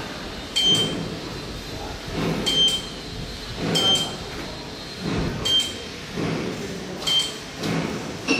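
Short high electronic beeps from a video measuring machine, six of them at irregular intervals of one to two seconds, each with a sharp click, over low rumbling swells from the moving measuring stage.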